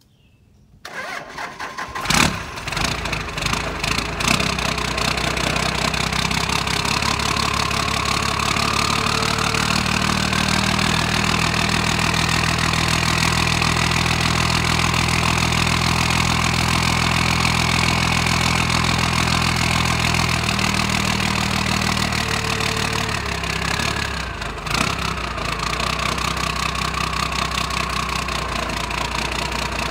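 12-valve Cummins 5.9 L inline-six diesel cold-started: it cranks briefly about a second in, fires at about two seconds and settles into a steady idle. A faint high whine above the engine slowly rises through the middle and drops back near the end.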